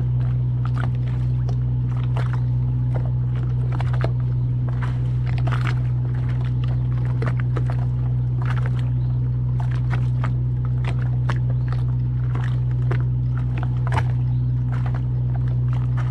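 A boat's machinery running with a steady low hum, with scattered light clicks and ticks over it.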